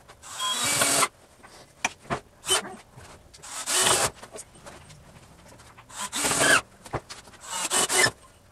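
Cordless drill driving screws into a wooden frame, in about five short bursts of under a second each with pauses between.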